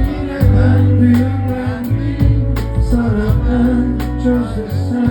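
Live band music at a rock concert: drums, bass and guitar playing an instrumental passage without lead vocal.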